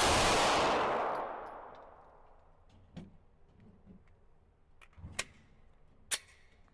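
A 9mm Glock 45 pistol shot at the start, its report ringing out and dying away over about a second and a half. Three fainter sharp cracks follow, about three, five and six seconds in.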